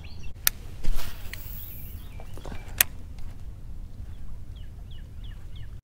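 A few sharp clicks and a brief rushing hiss in the first three seconds, then a bird calls a quick run of about six short, falling notes near the end.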